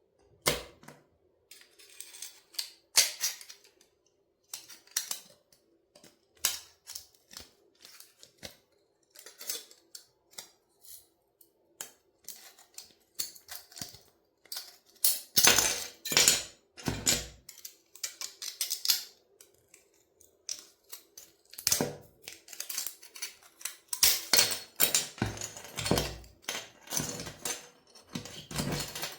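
A toy car being crushed, its parts cracking and snapping in irregular sharp clicks, with louder, denser bursts of crunching about halfway through and again over the last few seconds.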